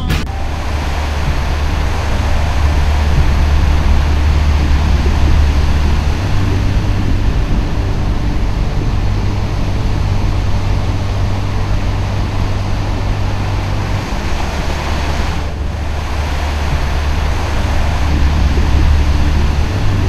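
Steady low rumble under a rushing noise. The rumble steps up in pitch about six seconds in and drops back about fourteen seconds in.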